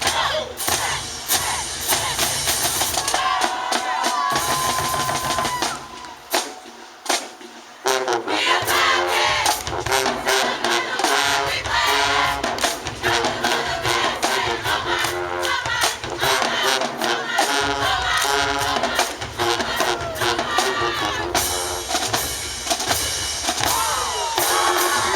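High school marching band playing, with the drumline hitting fast and steadily. After a short lull about seven seconds in, the horns come in strongly over the drums.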